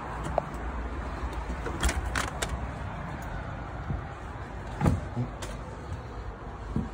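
A front door being opened: a quick series of clicks from its lever handle and lock about two seconds in, then a thump near five seconds as the door swings open and someone steps through, over a steady low rumble.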